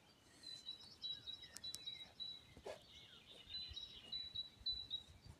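A bird chirping faintly in a run of short, high notes at nearly one pitch, with a few faint clicks in between.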